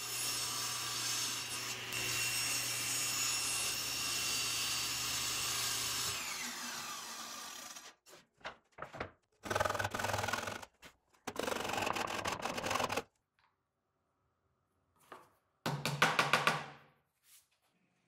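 SawStop table saw running as a plywood panel is fed over the blade; about six seconds in the motor is switched off and the blade spins down with a falling whine. Then several short bursts of plywood sliding and rubbing across the saw table as the sled parts are positioned.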